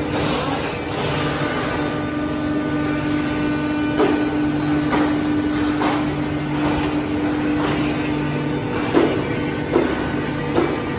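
Woodmaster CNC router running, its spindle cutting a wooden panel under the dust-extraction hood, with a steady hum and several sharp knocks in the second half. The hum drops away near the end.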